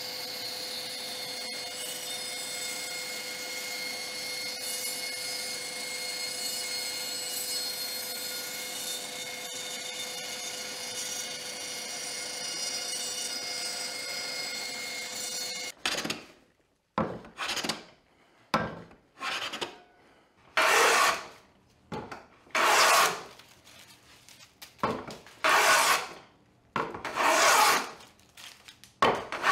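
Bandsaw running and cutting a board: a steady whine with several held tones. About halfway through it gives way to about a dozen separate strokes of a hand plane on wood, each short, with quiet gaps between them.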